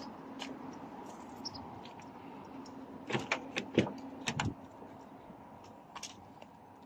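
A Toyota car door being unlatched and pulled open: a quick run of sharp clicks and knocks from the handle and latch, loudest about four seconds in.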